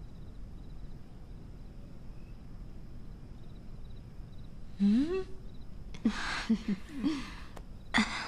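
Quiet room tone, then about five seconds in a short vocal exclamation that rises in pitch, followed by a few brief voiced sounds and murmurs.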